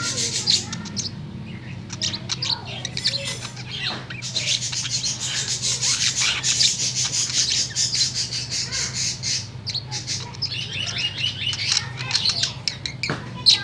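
Male budgerigar warbling: a fast, continuous chatter of clicks, chirps and short squawks, sparser at first, densest through the middle, then breaking into separate chirps near the end.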